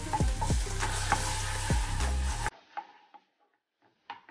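Chilli-garlic sauce sizzling loudly in a hot nonstick wok just after water is added, with a spatula stirring and scraping through it. The sizzle cuts off suddenly about two and a half seconds in, leaving a few light spatula taps.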